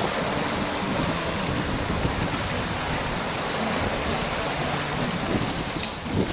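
Steady rush and slosh of choppy sea water.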